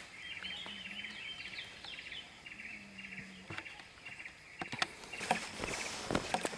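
Birds chirping steadily in the background; from about five seconds in, footsteps rustling through grass and low undergrowth.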